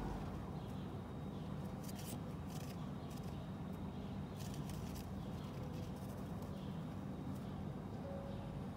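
Pigeons moving about close by: several short scratchy clicks over a steady low hum.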